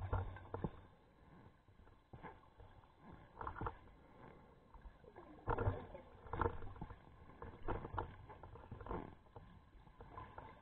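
Scuba diver breathing through a regulator underwater, heard through a camera housing as muffled, irregular bursts of exhaled bubbles over a low rumble.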